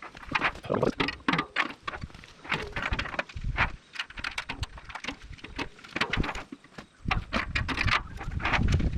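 Metal clanks, clinks and rattles of bolts and steel mixing paddles being handled and fitted into the drum of a PTO-driven concrete mixer: a string of sharp knocks. A low rumble comes in briefly about three and a half seconds in, then again for the last two seconds, where it is loudest.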